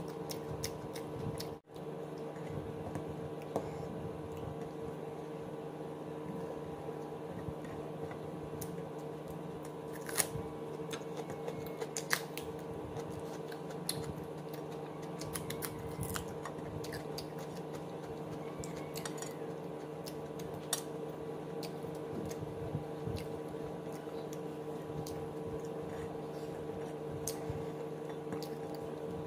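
Close eating sounds of a person eating rice and chicken with her fingers: soft squishes of the food being mixed and chewed, with scattered small clicks against the plate, over a steady low hum. The sound drops out for a moment about two seconds in.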